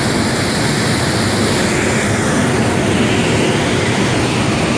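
Loud, steady rush of water blasting out through the open floodgates of a dam and spraying against rock.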